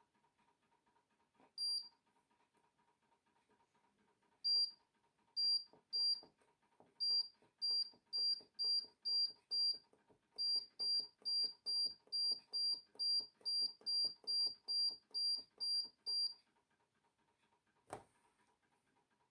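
Tumble dryer control panel beeping: a string of short, identical high beeps, a few spaced out at first and then a steady run of about two to three a second that stops suddenly. A single sharp click comes near the end.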